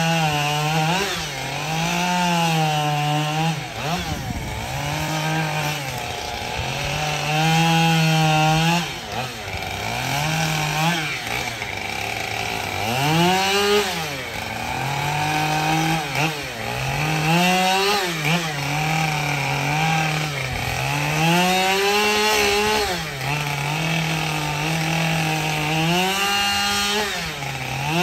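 Two-stroke chainsaw cutting into an upright log, the engine revving high and then dropping in pitch as the chain bites into the wood, over and over.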